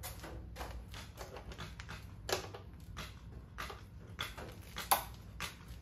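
Long-handled socket wrench working a 17 mm oil drain plug loose: a series of short, sharp metallic clicks, about two or three a second.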